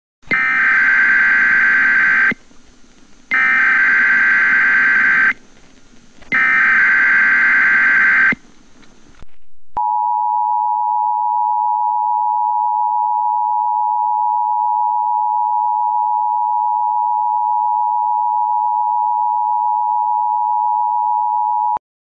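Emergency Alert System alert opening: three bursts of buzzy digital SAME header data tones, each about two seconds long with about a second's pause between, then the steady two-tone EAS attention signal sounding for about twelve seconds and cutting off suddenly.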